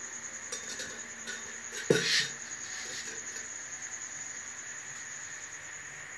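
Plastic blender jar being gripped and moved on the counter, with a few light clicks and one louder knock about two seconds in, over a faint steady high whine.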